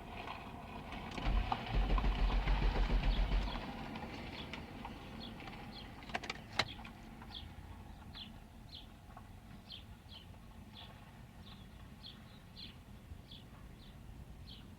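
A low, rapid buzzing from the car lasting about two seconds, the unexplained noise the owner hears from the transmission area with the engine off; the car won't start. A couple of sharp clicks follow, then a bird chirps over and over, about one and a half times a second.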